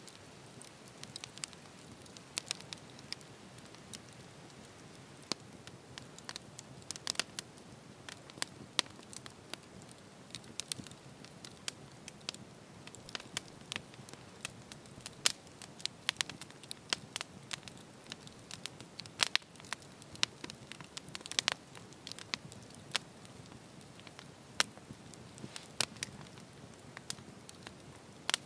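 Wood campfire crackling, with irregular sharp pops and snaps scattered throughout over a faint hiss.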